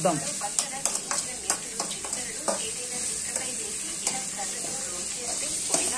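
Food sizzling as it fries in a metal pot while a spoon stirs it, with irregular clicks and scrapes of the spoon against the pot.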